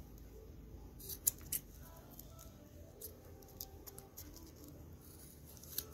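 Scissors snipping through the leather ends of a bracelet: three quick snips about a second in, then a few fainter clicks.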